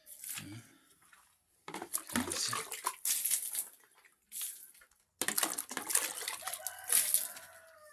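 Water splashing onto a floor in several surges during wet cleaning of a room.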